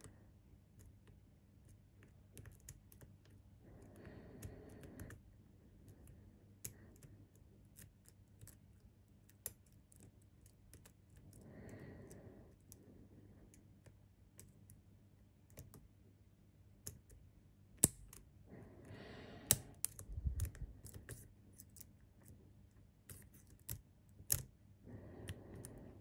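Lock-picking: a hook pick scraping and clicking against the pins inside a pin-tumbler lock cylinder held under a tension wrench, making scattered small metallic ticks, busiest near the end, with a few soft hissing rushes between them.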